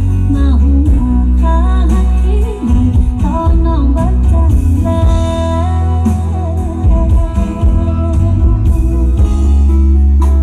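A song with a singer over heavy, continuous deep bass, played loud through a mobile outdoor-cinema loudspeaker system during a sound test.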